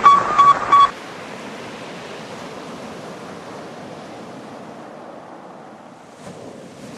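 Sputnik's radio signal: rapid repeated beeps on one steady pitch, cutting off about a second in. After the beeps a steady hiss continues and slowly fades.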